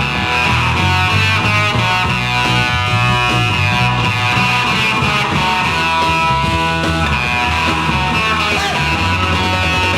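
1960s garage-rock band recording playing an instrumental passage with electric guitar, bass and drums, without vocals.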